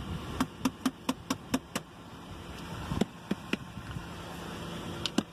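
Shoes knocked against each other to shake off wet snow: a quick run of about seven knocks, then three more, and two more near the end.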